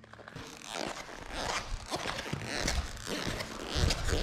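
Riding gear being handled: a string of short rasping, zip-like strokes and fabric rustling as a motocross glove is worked on, with a few dull low thuds in the second half.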